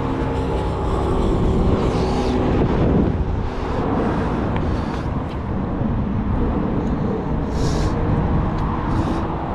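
Wind rushing over the microphone with city road traffic going by; an engine hum fades out about three seconds in.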